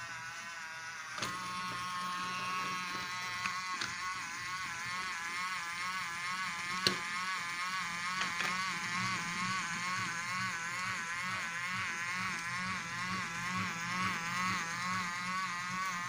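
Battery-powered toy vehicle giving out a steady electronic whirring tone that wavers up and down in pitch about twice a second, switched on with a click about a second in.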